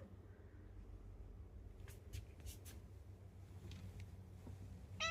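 Quiet room with a steady low hum and a few faint, short scratchy sounds about two seconds in.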